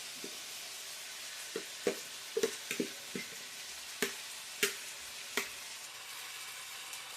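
Saltfish frying in a pan with a steady sizzling hiss, while a cooking utensil knocks and scrapes against the pan a dozen or so times as it is stirred, the knocks stopping a little past the middle.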